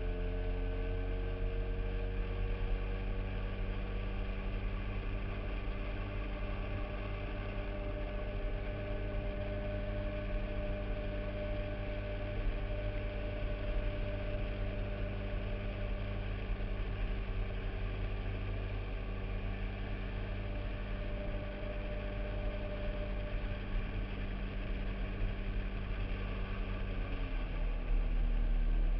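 Motorboat engine running steadily under way. Its pitch sags slightly over the first few seconds and drops again near the end.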